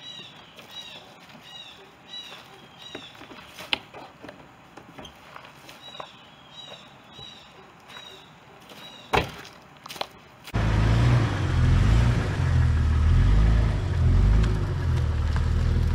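A bird chirping over and over, about twice a second, with a few sharp knocks, the loudest about nine seconds in. About ten seconds in, a Jeep Cherokee's running engine takes over as a loud, steady low rumble.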